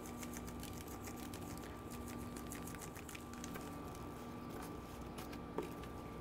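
Dry barbecue rub being sprinkled from a shaker onto raw pork belly strips on a perforated grill tray: a faint, rapid patter of many light ticks over a steady low hum, with one small knock near the end.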